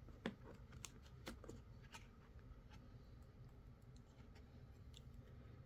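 Near silence with faint, scattered clicks of a plastic Blu-ray case and its discs being handled, most of them in the first two seconds.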